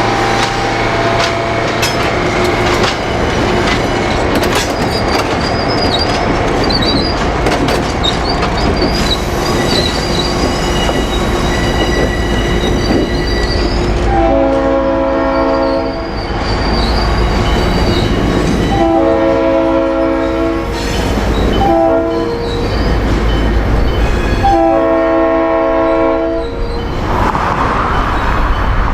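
EMD diesel locomotive running with a low rumble, its wheels squealing on the rail and clicking over joints. About halfway through, its air horn blows a chord in the pattern long, long, short, long: the grade-crossing signal.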